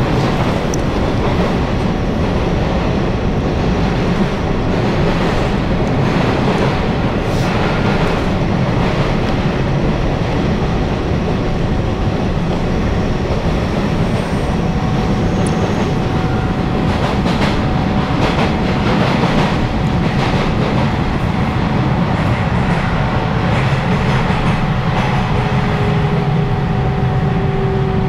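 Taiwan Railway EMU700 electric multiple unit heard from inside the carriage while running: a steady rumble of wheels on rail with bouts of clacking over the rail joints. Near the end a motor whine slowly falls in pitch as the train slows on its approach to the station.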